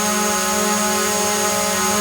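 Drone hovering: its propellers give a steady buzzing whine with a hiss of rushing air, holding one pitch.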